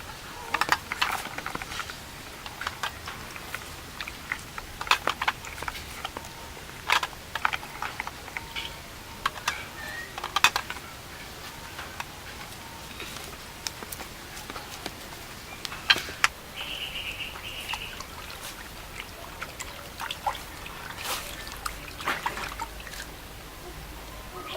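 Water being poured and splashed by hand, with drips and many scattered sharp knocks and clicks of hard things handled. A brief high tone sounds for about a second about two-thirds of the way in.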